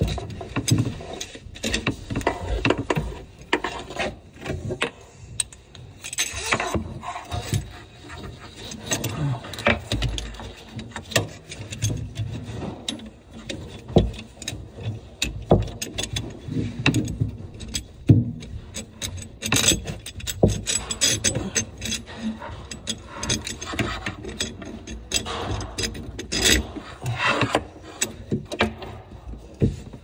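Irregular clicks, knocks and rustling as faucet supply hoses and their metal fittings are handled and fed through a sink cabinet.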